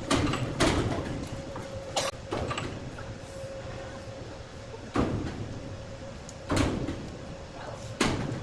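Sawmill machinery running with a steady hum, broken by about six heavy knocks and clunks at irregular intervals of one to three seconds.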